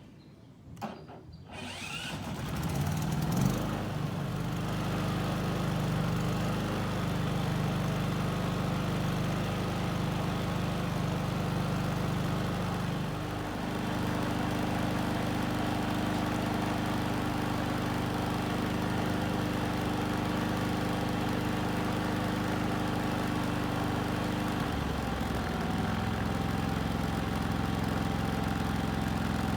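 Westinghouse iGen 4500c inverter generator starting up about two seconds in and then running steadily, its engine speed stepping down about halfway through and again near the end.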